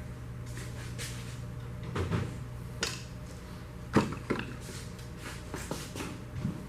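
Scattered knocks and clinks of metal tools and engine parts being handled, the loudest about four seconds in, over a steady low hum.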